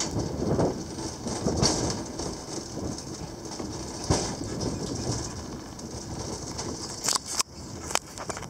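Gelmerbahn cable-hauled funicular car running down its very steep track: a continuous rattling rumble from the car on the rails, broken by irregular knocks and a few sharp clicks near the end.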